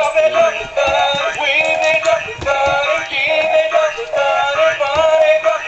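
Animated Chocolate Bunny toy playing its song: a synthetic-sounding voice singing a continuous melody over a backing tune.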